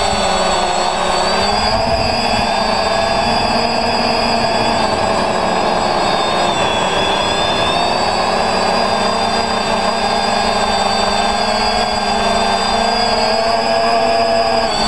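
Quadcopter's brushless motors and propellers whining steadily in flight, heard close up from the craft's own camera, several tones whose pitch drifts slightly up and down as the throttle changes.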